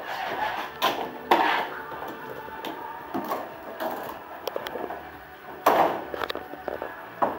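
Irregular knocks and clatters of hard objects being handled, the loudest about a second in and again near the middle.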